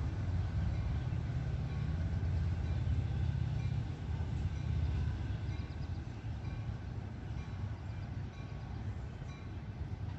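Diesel-hauled Metra commuter train running past, a steady low rumble of locomotive and coaches on the rails that eases somewhat about halfway through.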